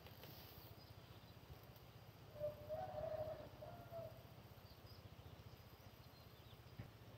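A bird calling faintly out over the water, one drawn-out call of about a second and a half starting about two and a half seconds in, over a faint low hum and a few thin high chirps.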